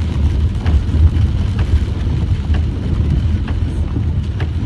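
Car running, heard from inside the cabin: a steady low rumble of engine and road noise, with a faint regular tick about once a second.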